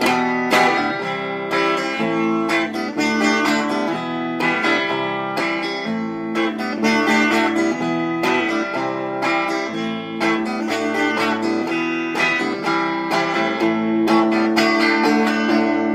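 Instrumental passage of a song, led by guitar: a steady run of plucked and strummed notes, with no singing.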